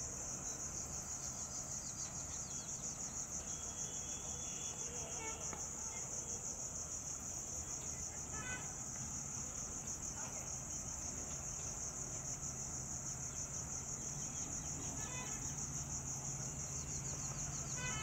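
Insects chirping in a steady, fast-pulsing high chorus, with the low drone of an approaching WDP4D diesel locomotive underneath, growing a little louder near the end; a couple of brief bird chirps.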